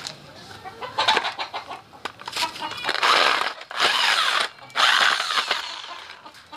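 Rotary hammer with an SDS-plus concrete core hole saw grinding through a concrete hollow block in three short bursts, a little past halfway, then stopping as the bit is lifted clear.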